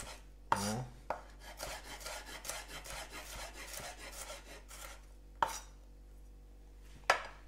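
Kitchen knife slicing red bell pepper on a wooden cutting board: a quick run of cuts, each stroke knocking the blade against the board. Near the end come two sharper knocks about a second and a half apart.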